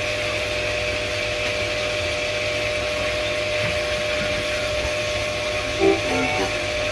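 Self-service K9000 dog wash machine running: a steady hiss of water from the spray hose over a constant motor hum.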